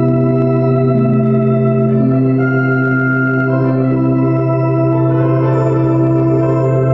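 Slow organ-like music: a steady low drone under long held chords whose notes change every second or two.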